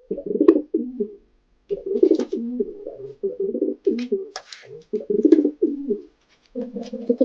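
Pigeon cooing: about five low, throaty coo phrases in a row, with short pauses between them.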